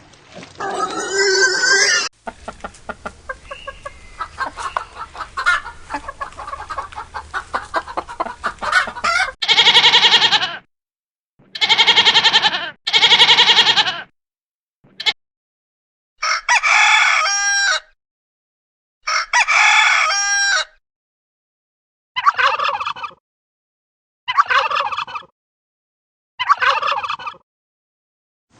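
Domestic chickens: a quick run of hen clucking, then a series of about nine separate crowing calls, each a second or so long with short silences between.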